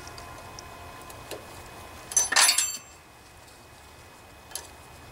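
Steel hand tools clinking: a few single clicks and one short, loud clatter with a ringing edge about two seconds in, as a socket driver is handled and fitted onto the rocker-arm adjusting nut of a Briggs and Stratton OHV engine.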